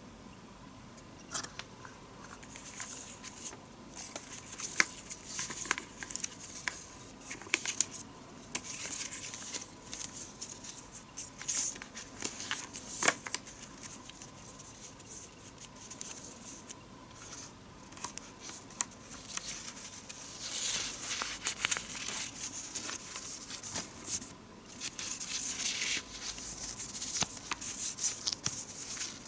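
Product packaging being handled and opened by hand: rustling and crinkling with tearing sounds, broken by many sharp clicks and taps, and longer rustling stretches near the end.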